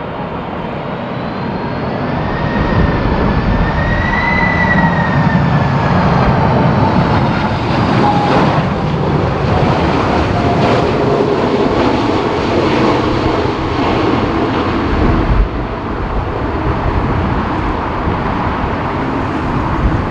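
Boeing 747-400 freighter's four jet engines on a landing pass: a loud, steady roar with a whining tone that glides gently up and down, swelling over the first few seconds and then holding.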